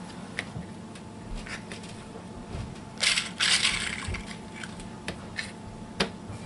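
Hands prepping food at a cutting board: wooden toothpicks rattling in their cardboard box for about a second, about three seconds in, with scattered light clicks and taps before and after.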